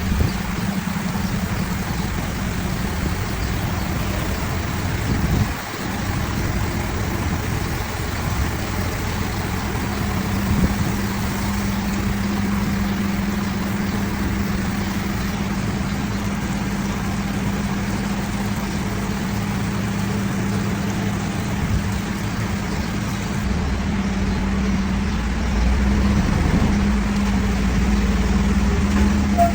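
An automatic bus wash and the bus's engine running together: a steady drone with a constant low hum under an even hiss.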